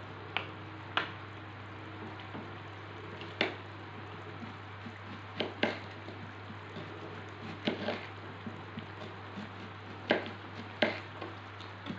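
A kitchen knife slicing an onion on a plastic cutting board, the blade clicking sharply against the board every second or two, after a wooden spoon knocks the wok twice at the start. Under it runs a steady low hum and hiss of the curry simmering in the wok on a portable gas stove.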